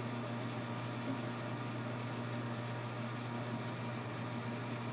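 Metal lathe running with its chuck and steel bar spinning: a steady, even motor and spindle hum.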